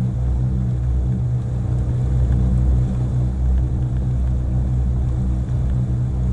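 Motorboat engine running steadily at cruising speed, a low, even drone.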